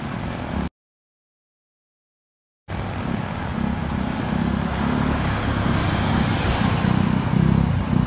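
Road traffic with a car passing, over a low rumble. The sound cuts out completely for about two seconds near the start.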